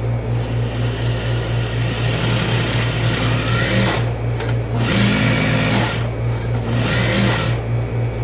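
Juki industrial lockstitch sewing machine stitching a seam in three runs: one of about three and a half seconds, then two shorter runs of about a second each. A steady low hum runs underneath.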